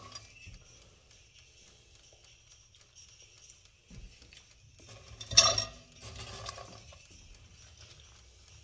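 Kitchen dishes and utensils clattering: a soft knock about four seconds in, then a sharp clatter a little after five seconds, with quieter rattling after it.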